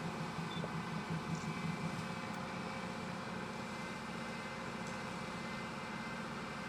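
Steady hum of a CNC woodworking machining centre running, with a low pulsing throb in the first couple of seconds that then settles to an even drone.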